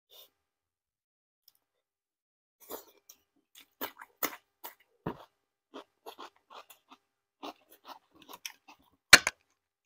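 A person chewing and crunching food close to the microphone: irregular short crunches start about two and a half seconds in, with one sharp, louder crunch near the end.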